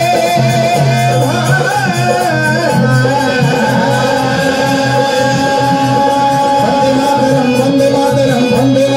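Devotional bhajan performed live: a male lead singer with a chorus, over harmonium and two dholaks drumming, with long held sung notes.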